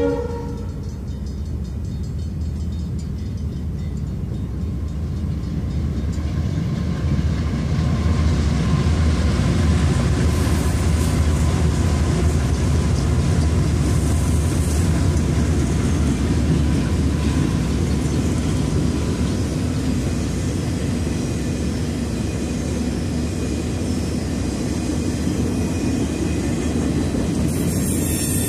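Santa Fe freight diesel locomotives approaching and passing close by: a deep engine rumble that grows over the first eight seconds, then a steady rumble as the train rolls past.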